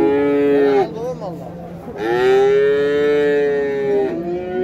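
Cattle mooing: a short moo ends just under a second in, a long moo of about two seconds follows in the middle, and another begins near the end.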